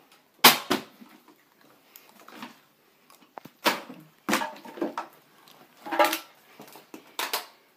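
Plastic water bottles knocking down onto a hard surface as they are flipped, landed or toppled: a string of sharp, separate thuds, about seven spread over the seconds, some in quick pairs.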